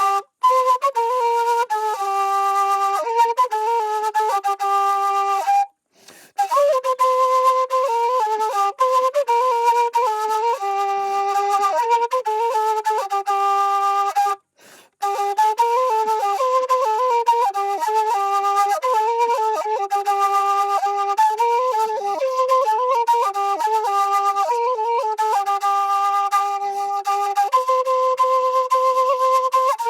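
Solo flute playing a slow melody of held notes and quick ornamented runs, with two brief pauses for breath.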